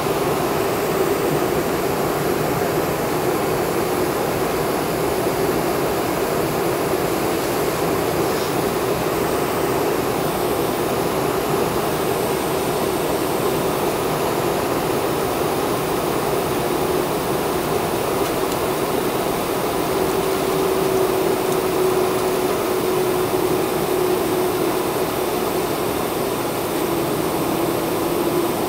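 Cabin noise inside a Boeing 747 on the ground, heard from a window seat over the wing: the jet engines run steadily at low power, an even rush with a faint steady hum, neither rising nor falling.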